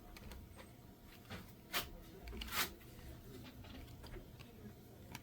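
Trading cards and their packaging being handled: light clicks and taps, with two short sliding swishes about a second and three quarters and two and a half seconds in.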